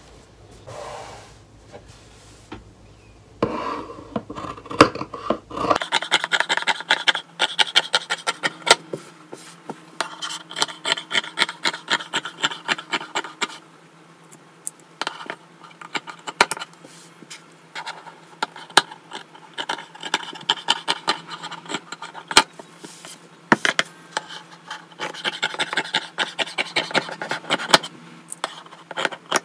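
Fabric shears cutting through a knit T-shirt: a run of crisp blade snips with the fabric rasping between them. About six seconds in the snips turn fast and dense, the cutting played back sped up threefold.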